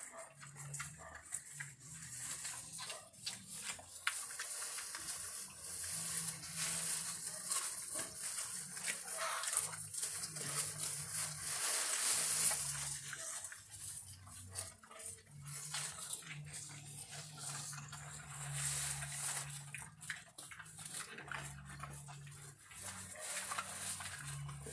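Pigs feeding on a pile of cut grass leaves: irregular chewing, snuffling and rustling of the leaves, with intermittent low sounds from the animals.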